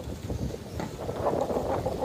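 Wind buffeting the microphone: an irregular, gusty rumble that grows denser about a second in.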